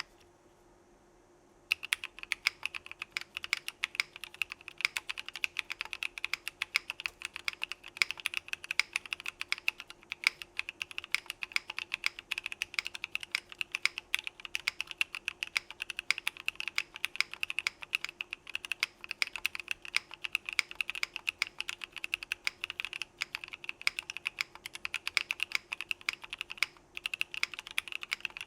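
Slow typing on a Geonworks Frog mechanical keyboard with an aluminum plate, WS Morandi linear switches (UPE stems, POM housings, lubed) and CRP Desko keycaps: a steady run of keystroke clacks that begins about two seconds in.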